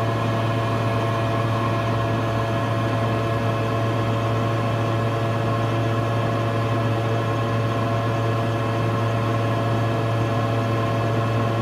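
Fume hood exhaust fan running with a steady, even hum.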